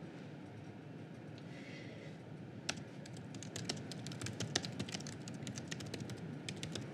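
Typing on a computer keyboard: quick, irregular keystrokes begin about three seconds in, over a faint steady room hum.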